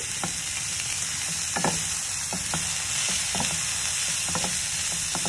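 Sliced vegetables sizzling in hot oil on a grill pan, a steady hiss, while a wooden spatula stirs them, knocking and scraping against the pan in a scatter of short knocks.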